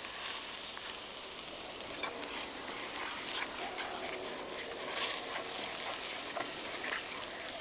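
Hot oil poured over dried chili flakes, sesame seeds and ground spices in a ceramic bowl, sizzling steadily as it fries the chili, while chopsticks stir the mixture with a few light clicks.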